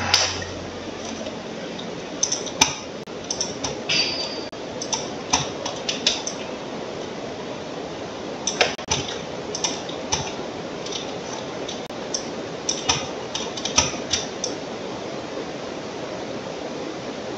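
Irregular clicks and taps of a computer mouse and keyboard, in small clusters from about two seconds in, stopping a few seconds before the end, over a steady background hiss.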